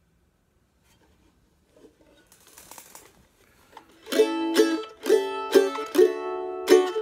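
After some faint scratchy noise, a Girouard studio mandolin is strummed in chords from about four seconds in, roughly two strokes a second, each stroke ringing on.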